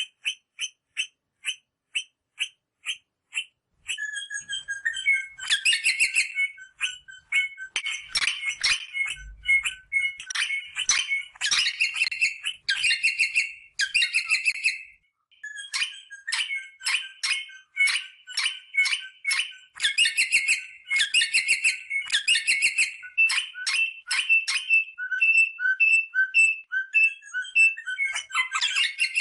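Rosella parrots calling. It opens with a run of short, evenly spaced notes, about three a second, then from about four seconds in turns into a fast, busy chatter of whistles and squawks, with a brief break near the middle.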